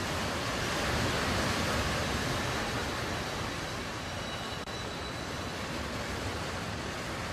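Fountain jets splashing into a basin: a steady rush of falling water.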